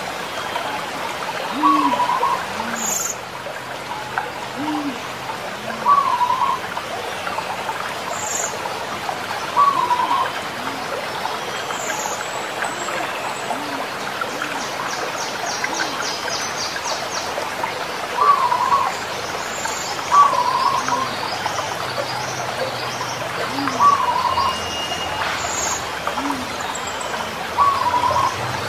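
Zebra doves (perkutut) calling: short cooing phrases repeated every few seconds, over a steady hiss like rain or running water, with occasional brief high chirps from other birds.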